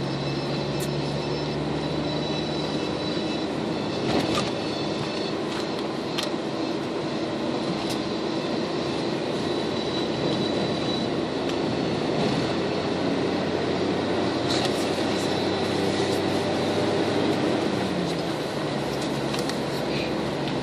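Car engine and tyre noise heard from inside a moving car, a steady rumble with steady low hums and a few light clicks and rattles.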